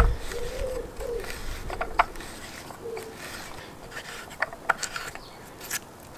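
Scotch-eye auger bit turned by hand as it bores into a log, creaking and clicking as it cuts. There are short squeaks in the first second and again near three seconds.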